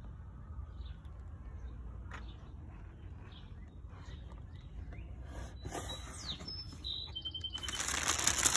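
A cardboard shoebox is handled with faint taps and scrapes over a low steady rumble, and a bird chirps briefly. Near the end comes loud rustling and crinkling of tissue paper as the wrapping inside the box is pulled back.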